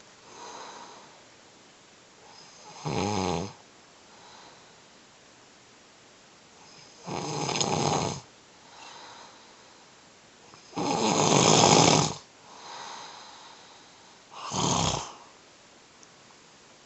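Man snoring in his sleep: four loud snores about every four seconds, with softer breaths between them. The snoring comes from sleep apnea, made worse by a cold that makes breathing hard.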